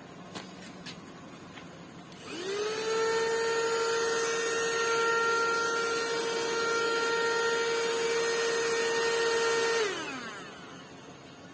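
Two light clicks, then a Gaabor GVCC-M4A1 handheld mini car vacuum cleaner switched on: its motor spins up with a rising whine to a steady hum, runs about eight seconds, then winds down with a falling pitch as it is switched off.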